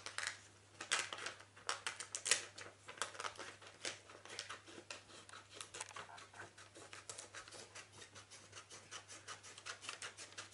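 Small scissors snipping through a printed paper craft sheet: a rapid run of short cuts, louder in the first few seconds, then quieter.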